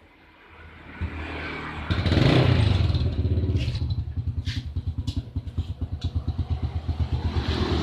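A small engine running with a rapid, even pulsing beat, starting about a second in and growing much louder about two seconds in.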